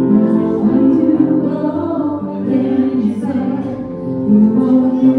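A woman singing into a microphone with an electronic keyboard accompanying her, the voice amplified and holding long notes.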